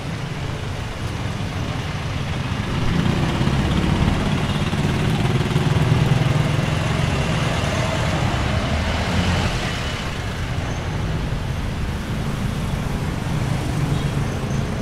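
Street traffic: motor vehicle engines running along the road, with one vehicle passing close and louder from about three seconds in until it fades by about ten seconds.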